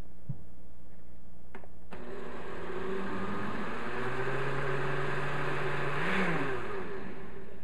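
Countertop blender running on a liquid milk mixture: a click or two, then the motor starts about two seconds in and runs steadily, and near the end it is switched off and winds down with a falling pitch.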